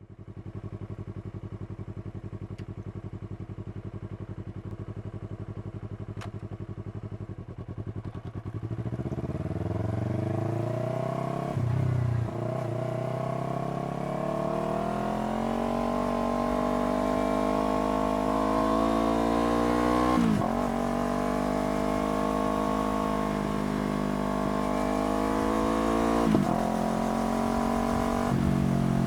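Yamaha R3's parallel-twin engine with a slip-on exhaust idling steadily, then pulling away about eight seconds in and accelerating through the gears, the revs climbing and dropping sharply at each upshift, four times.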